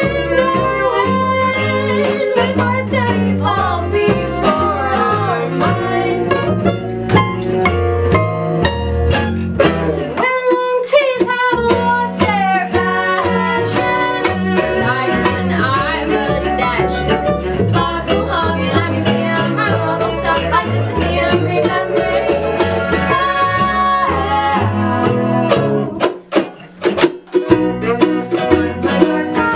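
Acoustic folk band playing live: a woman sings lead over strummed ukuleles, upright double bass and violin. About ten seconds in the bass drops out briefly, and near the end the band stops short for a couple of beats, leaving a few sharp hits, before coming back in.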